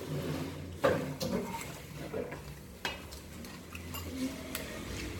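A few sharp clinks and taps of dishes and tableware on a table set with plates, bowls and a metal vegetable tray, as food is handled by hand.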